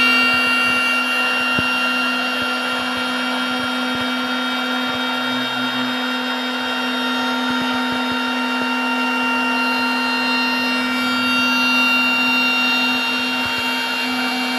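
CNC router spindle running steadily while the bit trims the edge of a hardwood board: a constant pitched hum with cutting noise over it.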